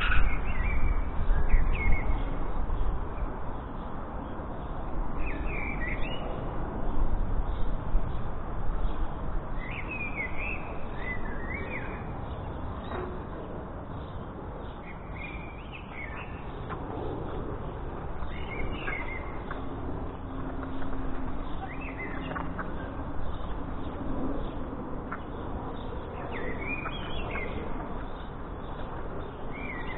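Jackdaws calling from the roof, short clipped calls with a bending pitch, singly or in quick pairs every few seconds, over a steady outdoor hiss. A low rumble is heard at the start.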